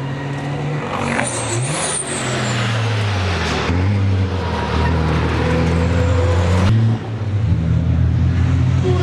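Racing trucks' diesel engines running hard through a corner, their pitch stepping up and down with gear changes as several trucks close in. A high whistle falls in pitch about a second in.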